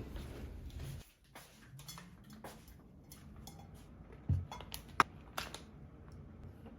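Scattered light clicks and knocks of kitchenware being handled, with a soft thud a little past the middle and a couple of sharp clicks just after.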